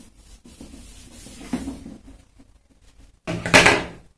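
Marker pen scratching on a whiteboard as chart lines are drawn, followed near the end by one short, louder sound.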